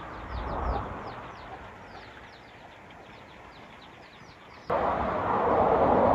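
Many short, high, falling chirps from birds or chicks, several a second, over a faint background hiss. About four and a half seconds in, a much louder steady rushing noise cuts in suddenly.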